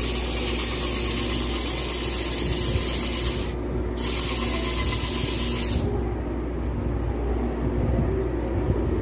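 Small DC motor driving a homemade PVC gearbox, running under load as it winds in a string and lifts a pair of pliers, with a high hiss. It cuts out briefly about three and a half seconds in, restarts, and stops for good about six seconds in, leaving a steady low hum.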